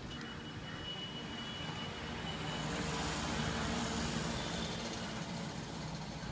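Road traffic and vehicle noise: a steady engine rumble with a rushing sound that swells louder about halfway through, then eases.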